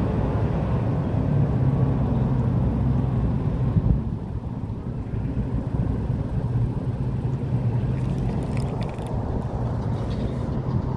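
Motor-vehicle traffic going by on a nearby road: a steady low engine rumble, easing slightly about four seconds in.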